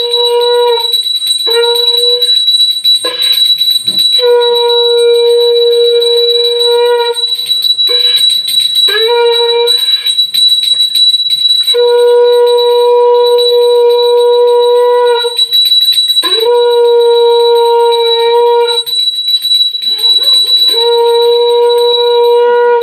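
A conch shell (shankha) blown in a series of long held notes, each lasting one to three seconds and starting with a short upward slide in pitch, with pauses between them. A steady high ringing tone runs underneath throughout.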